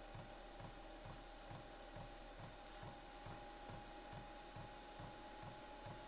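Fuel dosing pump of a cheap Chinese diesel heater ticking faintly and evenly, about two clicks a second, over the steady whine of its fan. The pump is feeding kerosene during start-up before the burner has lit, with unburned fuel blowing out the exhaust as vapour.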